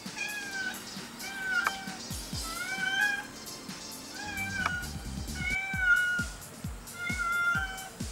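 A cat stuck up a tree and unable to climb down, meowing over and over: about eight drawn-out meows, each rising then falling, roughly one a second.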